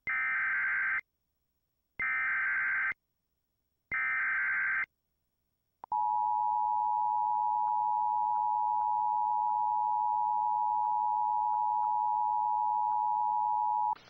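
Emergency Alert System SAME header: three one-second bursts of digital data screech, about a second apart, followed by a steady alert tone just under 1 kHz lasting about eight seconds. This signals the start of a tornado warning broadcast.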